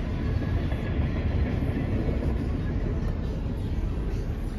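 Freight train of open-top coal hopper cars rolling past a grade crossing: a steady noise of wheels on the rails, heaviest in the low end.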